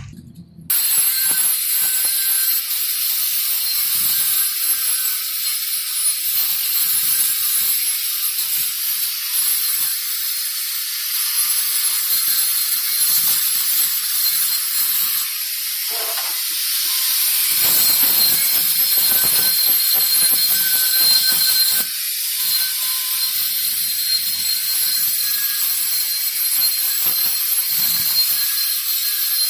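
Shielded metal arc (stick) welding on a carbon steel pipe: the arc strikes about a second in and then holds a steady, crackling sizzle, with a brief dip in level about two-thirds of the way through.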